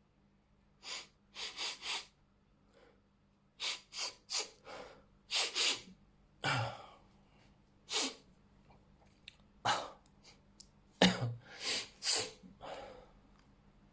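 A person sneezing repeatedly in a dozen or so short, sharp bursts, the loudest about eleven seconds in, set off by Chhinkni herbal sneezing powder.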